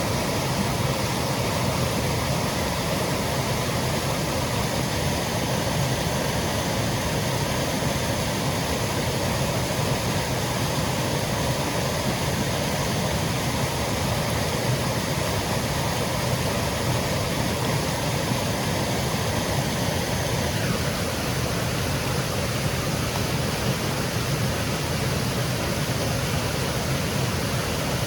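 Small woodland waterfall cascading over rocks: a steady, unbroken rush of falling water.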